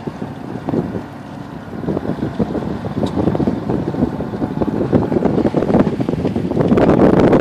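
Wind buffeting the microphone on a sailboat under way, in rough gusts that grow louder over the last few seconds.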